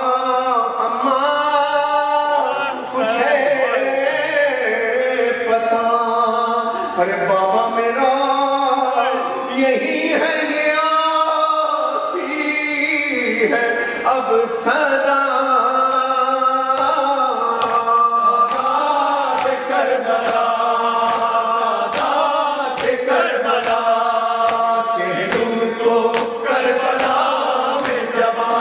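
Unaccompanied Shia noha, a Muharram lament chanted by a lead male voice with a chorus of men's voices.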